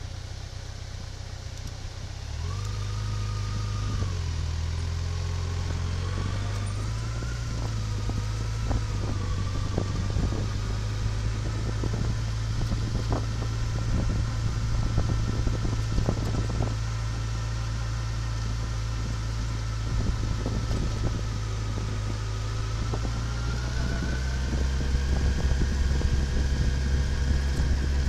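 A motor vehicle's engine running while driving, its pitch rising about two seconds in and again near the end as the revs climb. Scattered short knocks and rattles sound throughout.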